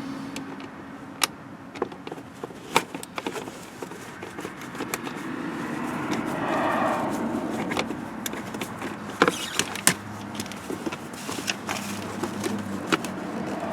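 Sharp clicks and knocks at irregular intervals over a faint low steady hum, with a brief rustling swell about halfway through.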